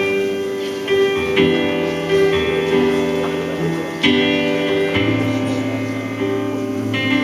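Instrumental accompaniment playing slow, sustained chords, with a new chord every second or so and a low bass note joining about five seconds in.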